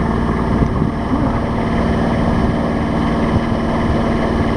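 A sailboat's engine running steadily while the boat motors along under way, a constant drone.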